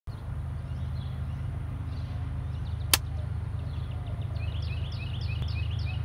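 A bird calls a quick series of falling chirps during the last second and a half, over a steady low rumble. A single sharp click sounds about halfway through.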